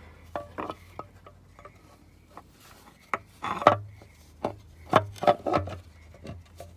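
Irregular metal clicks, knocks and scrapes of hand work on an engine's timing chain cover: the cover seated over the crank and its bolts threaded in by hand. The loudest knocks come in a cluster a few seconds in.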